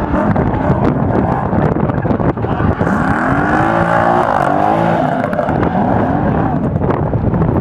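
A drift car's engine revving, its pitch rising and falling a few times over several seconds from about a third of the way in, over steady wind noise on the microphone.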